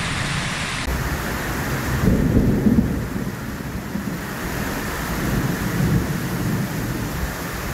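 Heavy rain pouring down in a storm, a steady hiss, with a louder low rumble about two seconds in.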